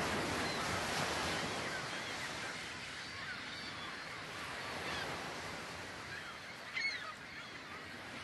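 Birds calling: a few short, curving cries over a steady rush of wind and sea, with one louder cry about seven seconds in.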